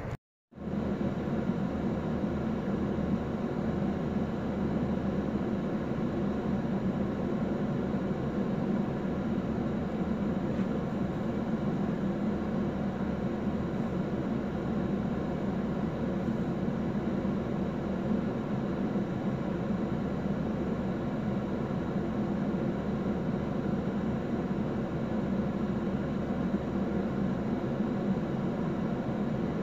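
Steady engine hum and rumble heard from inside a car, strongest low down and unchanging, with a brief dropout just after the start.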